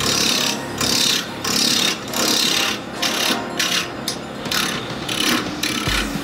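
Wood lathe with a turning tool cutting a piece of wood mounted off-centre for multi-axis turning: a run of short scraping cuts, about one or two a second, as the tool works the spinning blank.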